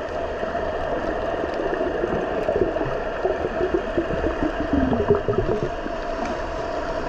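Underwater sound picked up by a GoPro camera: a steady drone and hiss, with a few seconds of irregular gurgling water in the middle.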